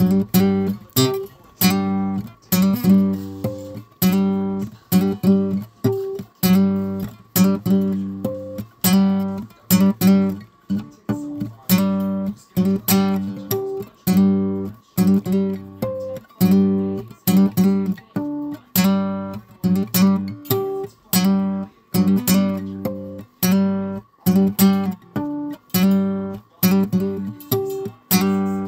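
Guitar music: chords strummed in a steady rhythm, each ringing briefly before the next.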